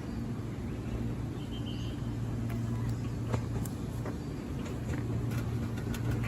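JR Kyushu 787 series electric train running into the station: a steady low hum and rumble with scattered short clicks from the wheels on the track.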